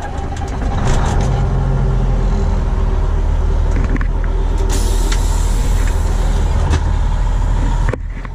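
Heavy engine running steadily, a loud low drone with a faint high whine and a few clicks, cutting off abruptly near the end.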